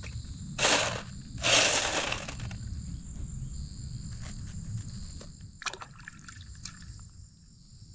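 Shallow creek water sloshing around a gravel-loaded sifter screen in two short bursts in the first two seconds, then a few small clicks of wet gravel being picked through by hand on the mesh.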